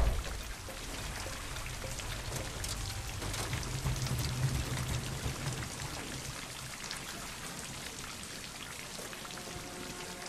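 Steady rain falling on the overturned, wrecked car and the wet ground, with fine scattered drop ticks. A low hum swells and fades midway, and faint sustained tones come in near the end.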